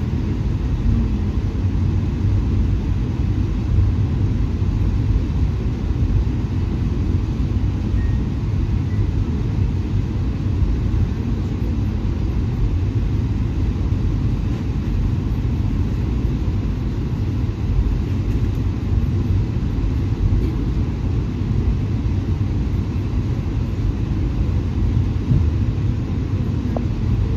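Steady low rumble of a VIA Rail passenger train, heard on board, with no distinct events.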